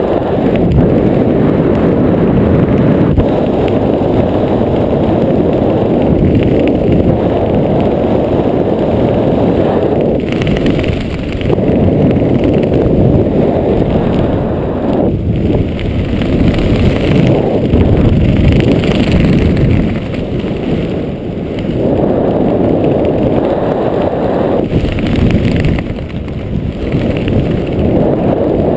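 Rushing wind buffeting a GoPro's microphone during a skydive, in freefall and then under an open parachute. It is a loud, steady rush that surges and briefly eases several times.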